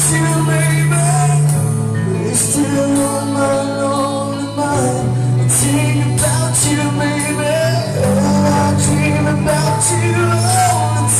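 A live band playing a pop-rock song: drums with steady cymbal strokes, sustained bass notes that change every couple of seconds, and a melodic lead line over them.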